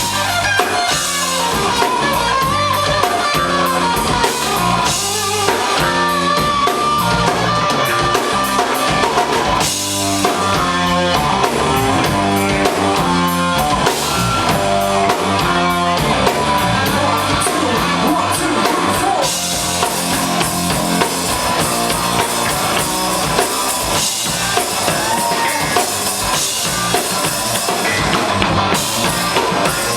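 Live rock trio playing an instrumental passage: guitar, bass guitar and drum kit keeping a steady beat.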